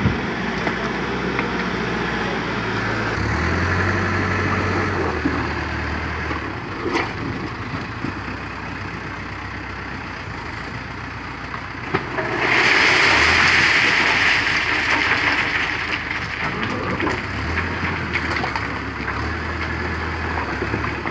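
Backhoe loader's diesel engine running, revving up twice under load as the front bucket is worked, with a loud hissing rush for about two seconds midway.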